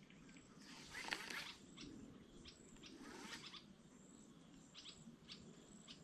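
Near silence with a few faint, scattered bird chirps.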